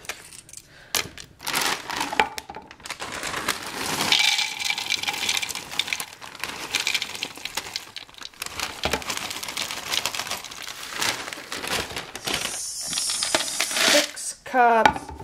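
Dry Chex cereal pieces pouring from a plastic bag into a tall clear plastic canister: a rattling, clicking patter of many small pieces, with the bag crinkling.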